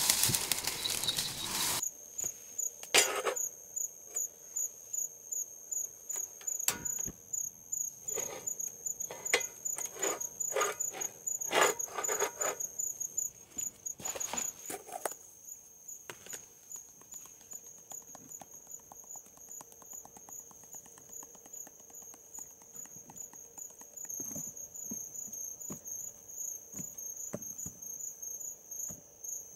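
Crickets chirping in a steady, high, pulsing trill. Over the first half there is a run of irregular knocks and clatter, from handling nearby.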